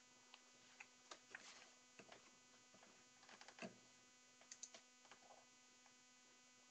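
Near silence: a faint steady electrical hum with a scattering of faint, short clicks.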